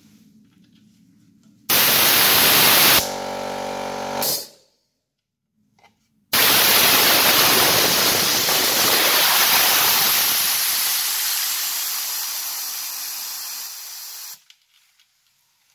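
Compressed air hissing out of the PROTECO K-1100 compressor's safety valve as its ring is pulled, bleeding the tank. A short blast about two seconds in turns into a buzzing tone before stopping. A long blast from about six seconds slowly weakens as the tank pressure falls, then cuts off sharply near the end.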